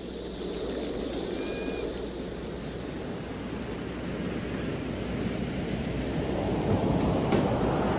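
A rushing, wave-like noise swelling steadily louder, with a few sharp clicks near the end, building into the start of a music track.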